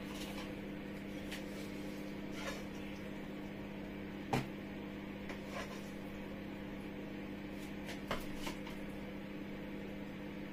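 A wooden spatula scooping fried sauce from a plastic container into a frying pan and stirring it: a few light knocks and scrapes, the loudest about four seconds in, over a steady low hum.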